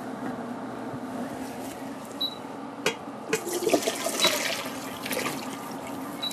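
Boiled gailan and its hot blanching water poured from a pot into a stainless steel colander, the water splashing and draining through. A sharp knock comes about three seconds in, and the pouring runs for about two and a half seconds after it, easing off near the end.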